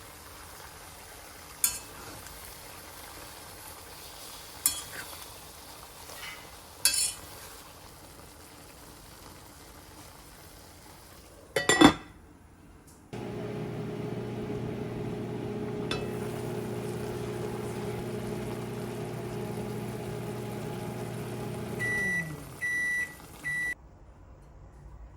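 Dishes clinking, a loud knock like a door shutting, then a microwave oven running with a steady hum. The hum winds down about 22 seconds in and is followed by three beeps signalling that the heating cycle has finished.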